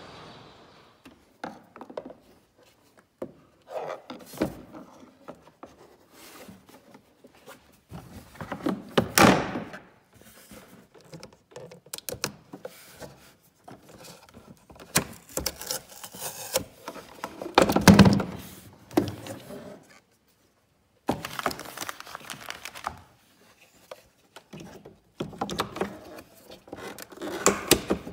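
Hands working a plastic jet-ski gauge cluster and its wiring connector loose from the dash: irregular plastic clicks, knocks and rubbing, with louder thunks about nine seconds in and again around eighteen seconds.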